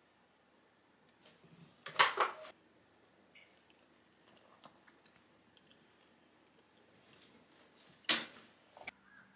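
Chopsticks splitting a soy-marinated soft-boiled egg on rice in a ceramic bowl: two short wet squishes, about two seconds in and about eight seconds in, with faint clicks between them.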